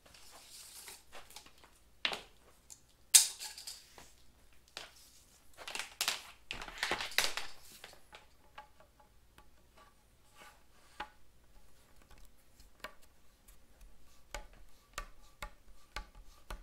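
Workshop handling noises: a sharp click, then rasping as a steel tape measure blade is pulled out, followed by light ticks and taps as the tape is laid along a wooden board.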